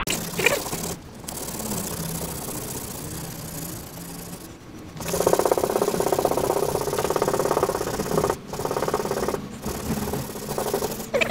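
Sandpaper rubbing down cured body filler on a van's rear wheel arch by hand, in quick back-and-forth strokes with short pauses; about halfway through the strokes get faster and louder for a few seconds.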